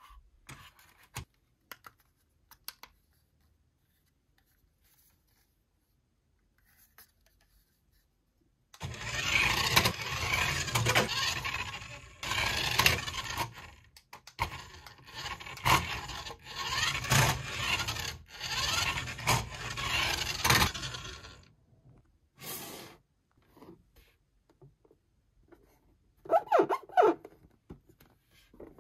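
Toy Spider-Man RC car running in four or five bursts of two to three seconds, its small motor and wheels making a loud, noisy run that swells and fades with each burst. A few light clicks come before it, and a short pitched toy sound near the end.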